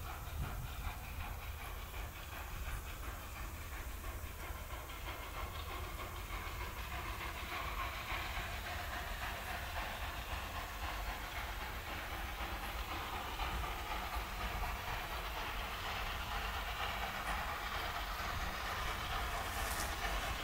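Narrow-gauge steam train: a steady hiss of steam over rail and running noise, slowly growing louder through the middle.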